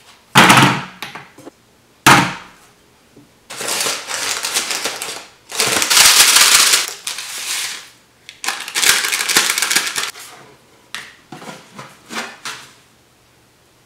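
Kitchen sounds of making instant oatmeal: two sharp knocks as a kitchen scale and a ceramic bowl are set down on the counter, then several stretches of paper-packet rustling and dry oats pouring into the bowl, with a few light clicks near the end.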